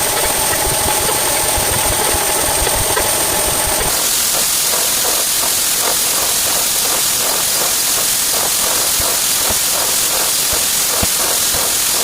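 Sped-up sound effects, loud and continuous: a steady humming, engine-like sound with held tones changes about four seconds in to a steam-like hiss with rapid, evenly spaced chuffs.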